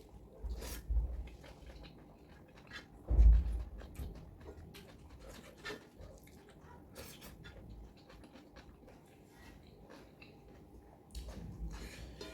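Eating sounds close to the microphone: chewing and mouth noises with scattered small clicks, and a low thump about three seconds in.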